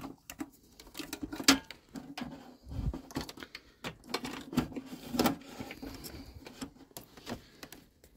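Irregular small clicks, taps and rustles of hands handling cables and plastic fittings inside a caravan boiler housing, with a dull knock about three seconds in.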